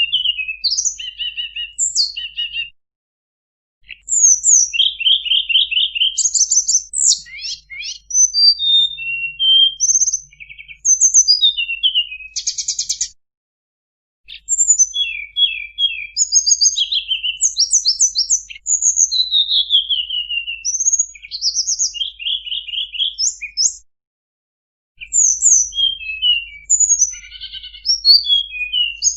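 Tledekan gunung singing a fast, varied song of sharp chirps, rapid trills and falling whistles, in long runs broken by silences of about a second.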